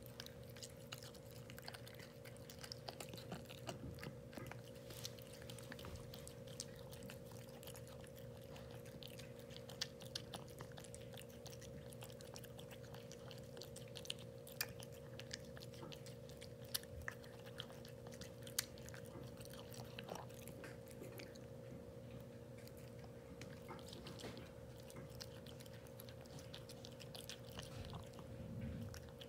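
A cat eating chunky wet cat food from a ceramic bowl: faint, irregular small clicks and smacks of chewing, over a steady low hum.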